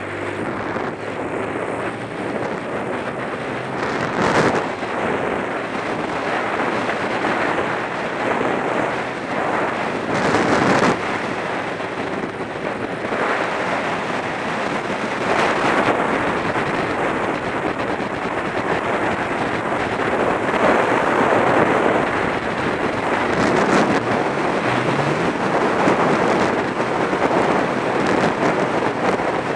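Wind rushing over the microphone of a Sinnis Stealth 125 motorcycle riding at road speed, surging louder every few seconds, with the bike's engine running underneath.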